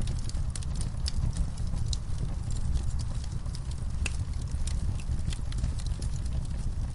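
Fire in a fireplace crackling, with many irregular sharp pops and crackles over a steady low rumble.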